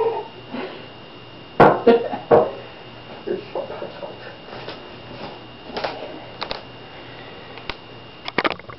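Dishes being washed by hand: scattered sharp clinks and knocks of dishware, loudest in a cluster about two seconds in, with a quick run of clinks near the end.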